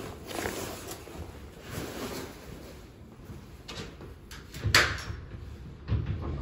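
Scissors and cotton work gloves gathered up off a wooden table, with rustling and light knocks of handling and movement. A sharp clack, the loudest sound, comes just under five seconds in.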